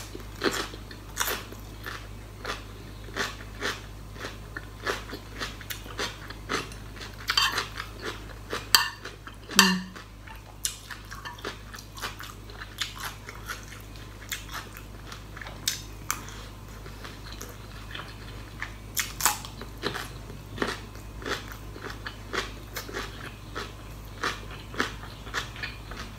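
Close-up chewing of crisp raw cucumber and pork larb, with sharp, irregular crunches a few times a second. A steady low hum sits underneath.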